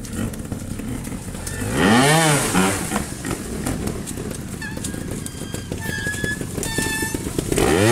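Trials motorcycle engine blipped twice, each a quick rev up and back down, about two seconds in and again near the end, with a few short high-pitched tones in between.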